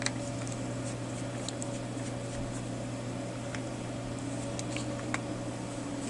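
Steady low hum, with a few faint, light clicks as a screwdriver turns a small screw out of a plastic multimeter case.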